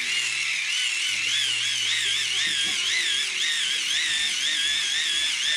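Hand-crank dynamo phone charger being cranked under load: the small generator gives a steady high whine over a hissing rush, and the pitch wavers up and down a few times a second as the cranking speed varies.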